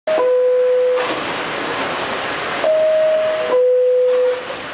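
R68 subway car's two-tone door chime sounding twice, a higher note dropping to a lower held note each time, over the steady hiss of the train and station: the signal that the doors are about to close.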